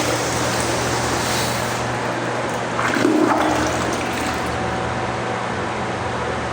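Commercial flush valve (flushometer) on a restroom fixture flushing: a steady rush of water, with a brief surge about three seconds in.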